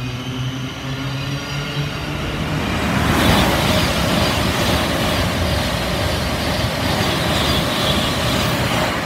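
Thameslink Class 700 electric multiple unit pulling out of the platform: its traction motor tones rise in pitch as it accelerates. From about three seconds in comes a loud, steady rush of the carriages going by close.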